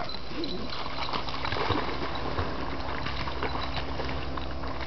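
Water splashing and gurgling, with many small quick splashes, from a dog paddling in the water after a stick.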